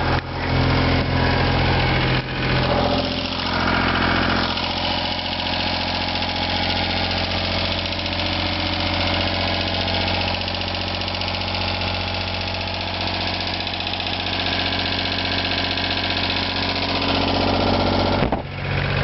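Moody 30 sailing yacht's inboard engine running steadily at idle just after starting.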